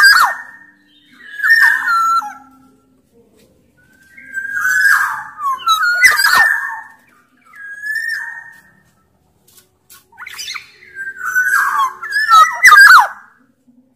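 Black-naped oriole (Sumbawa kepodang) singing in repeated short phrases of gliding whistled notes mixed with harsh, rasping notes, with brief pauses between phrases.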